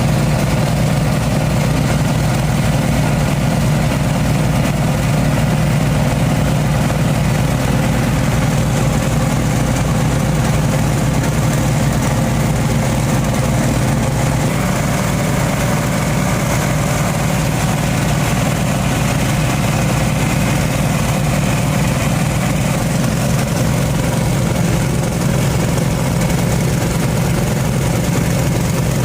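Boat engine running steadily at a constant pace, a loud low drone with an even pulsing beat.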